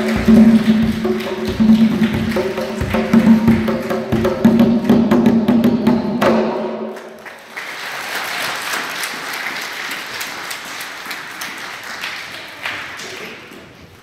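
Hand drums beaten under music that holds a steady pitched note, stopping about six or seven seconds in. Applause follows and fades away.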